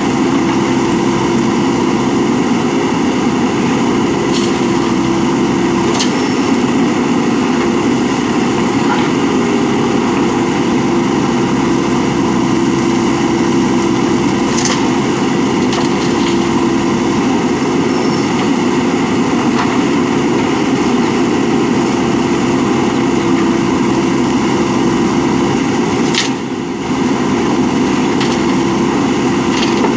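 Diesel engine of a JCB 3DX backhoe loader running steadily at a constant speed, with a few faint clicks and knocks over it.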